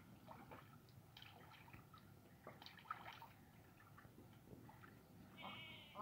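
Faint, small splashing and dabbling of a duck feeding with its bill in shallow muddy water. Near the end comes one faint, wavering animal call.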